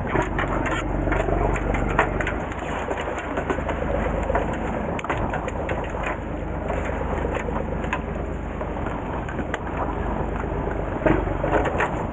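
Fishing boat's engine running with a steady low rumble under wind and water noise, with scattered light knocks and clicks.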